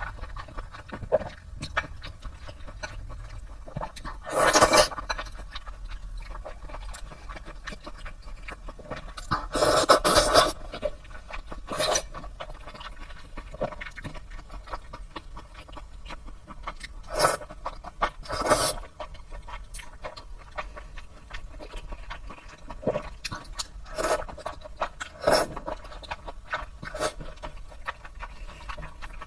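Close-up eating sounds: a person eating sesame-paste wide noodles, with short wet bursts of slurping and chewing every few seconds. The loudest come about four and ten seconds in.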